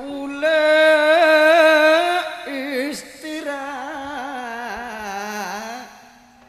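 A solo singer's voice in Madurese gending singing: one long high note held with a quick vibrato, then a softer, wavering, ornamented line that trails off near the end.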